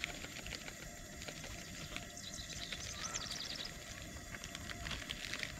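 A bird calling in two quick runs of high, sweeping notes near the middle, over a steady low background rumble.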